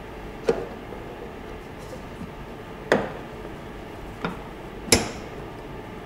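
Stainless steel bowl and fittings of a bench planetary mixer knocking and clanking as the bowl is worked into place and the lift lever and guard are handled: four sharp metal knocks, the last and loudest, about five seconds in, ringing briefly.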